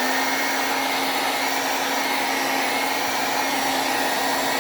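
Handheld blow dryer running steadily on the hairline, drying the Got2b spray until it is slightly sticky; a steady whir with a low hum that cuts off suddenly just after the end.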